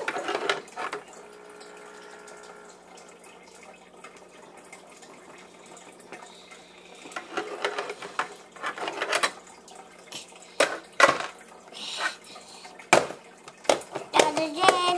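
Plastic toy dinosaur handled and knocked against a plastic high-chair tray: scattered clicks and taps.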